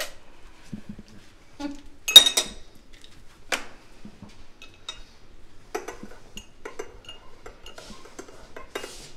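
Porcelain espresso cup and saucer clinking, with a sharp clink about two seconds in and another a second later. In the last few seconds a teaspoon stirs in the cup with quick, light clinks.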